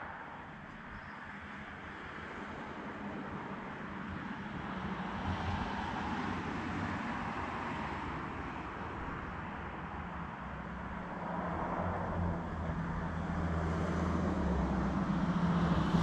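Road traffic going by on the street, with a pickup truck's engine and tyres getting steadily louder toward the end as it approaches.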